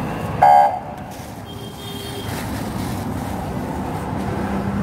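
Street traffic running steadily, with a short, loud car horn toot about half a second in.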